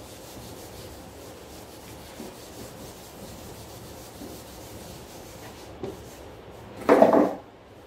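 A duster rubbing across a whiteboard, wiping off marker writing as a steady scrubbing hiss. Near the end there is a short loud burst of a man's voice.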